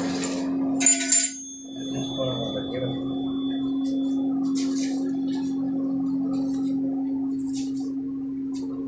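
A steady machine hum with a sharp metal clang about a second in, whose ring carries on as a thin high tone for a few seconds, then a few short hissing scrapes.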